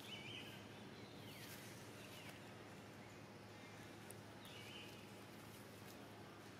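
Near-silent outdoor background with a few faint, short, high-pitched calls: one near the start, a falling call about a second and a half in, and another about four and a half seconds in.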